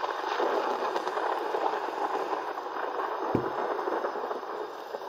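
Heavy rain pouring down in a steady loud hiss, with one short low thud about three seconds in.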